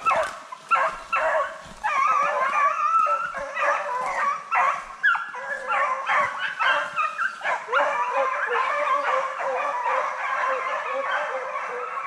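A pack of deer hounds in full cry: several dogs baying and yelping over one another without a break. It is the sound of dogs freshly released that have jumped a deer and are running its track.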